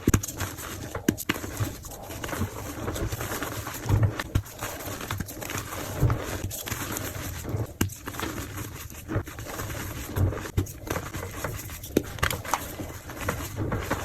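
Reformed gym chalk being crushed and crumbled by hand: soft crunching and crackling, with a dull thud every couple of seconds.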